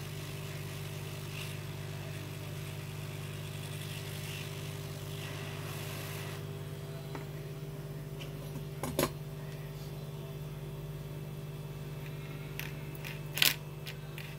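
Computer cooling fans running steadily under a graphics benchmark, a low hum with an even rush of air. The higher part of the rush drops slightly about halfway through, and a few sharp clicks come near the middle and near the end.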